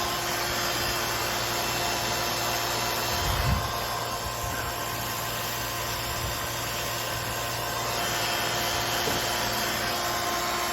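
Nitrogen gas blowing through an air-conditioner refrigerant line to flush debris out of it: a steady rushing hiss with a constant hum. A brief low thump comes about three and a half seconds in, after which the higher hiss thins for a few seconds before coming back.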